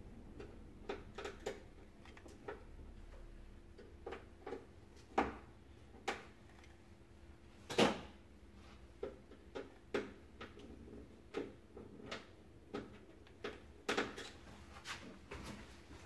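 Irregular small clicks and light plastic knocks from a hot glue gun being worked along a vacuum cleaner's plastic HEPA filter frame, with a faint steady hum underneath.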